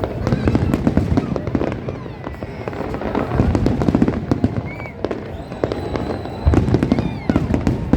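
Fireworks going off: dense crackling with heavier bangs about half a second, three and a half and six and a half seconds in, and an occasional short whistle.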